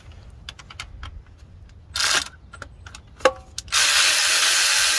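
A power tool runs in a short burst about two seconds in, a metal part clinks once, then the tool runs steadily and loudly from near the four-second mark, backing out the bolt that holds the transmission's shifter cable.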